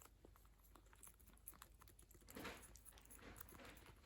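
A cat licking Churu lickable puree treat: faint, quick, irregular wet licking clicks and smacks.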